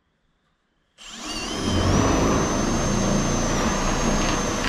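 Power drill working into the carport's sheet-metal roof edge. It starts suddenly about a second in, its motor whine rising quickly as it spins up, then running at a steady speed.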